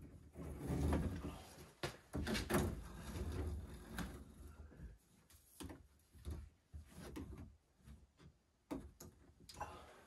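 Bare copper ground wire being pulled and handled around plastic water-filter housings and pipes. There is a rustling, scraping stretch over the first few seconds, then scattered light knocks and clicks.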